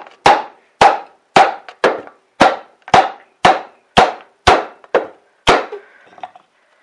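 Wooden hammer handle knocking the seized piston down the cylinder bore of an old 5 hp Briggs & Stratton flathead engine block, about two blows a second, each ringing briefly. The blows stop near the end. The piston, soaked in penetrating oil, is breaking loose and working its way out of the bore.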